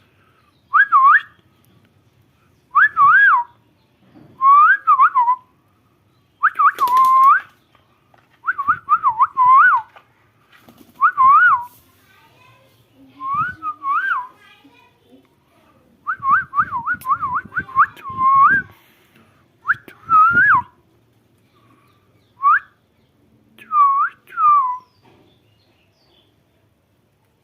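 Pet parrot whistling in short warbling phrases, each a quick up-and-down trill, repeated about a dozen times with brief pauses between.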